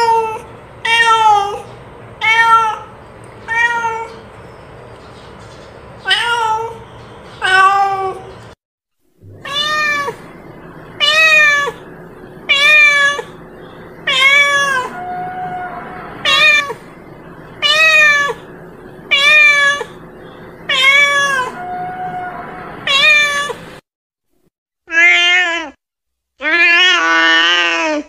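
Domestic cat meowing over and over, one short meow about every second and a half. Near the end, after a short pause, come longer, wavering meows.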